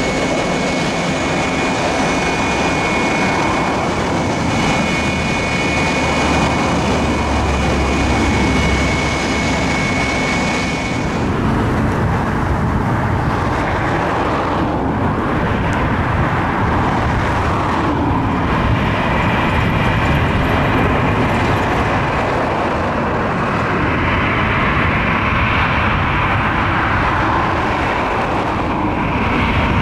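Boeing 737's CFM56 jet engines: a steady high whine over engine noise during the landing, giving way about eleven seconds in to a broader, steady engine noise as the jet taxis.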